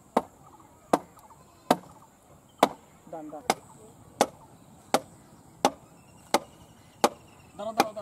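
A thin bamboo pole being hammered into an upright banana-trunk post with a hand-held club: about eleven sharp blows at a steady pace, roughly one every three-quarters of a second.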